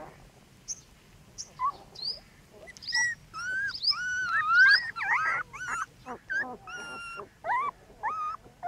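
One-week-old puppies whimpering and squealing: a run of short, high, wavering cries, busiest and loudest in the middle, with several pups crying at once.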